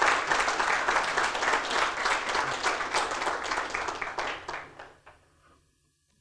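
Audience applauding, many hands clapping, thinning out and dying away about five seconds in.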